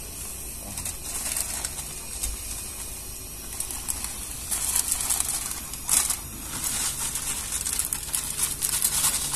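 Plastic instant-noodle packet crinkling and rustling as it is handled, in irregular bursts from about four seconds in.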